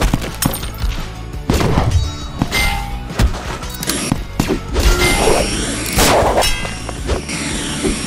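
Fight sound effects: a string of metallic clangs, each ringing on, with whooshes and hits between them, as a metal shield is struck in combat, over background music.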